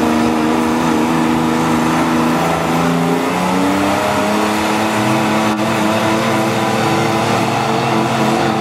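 Toyota mud truck's engine running hard at high revs under heavy load in a tug-of-war truck pull, holding fairly steady with a few shifts in pitch.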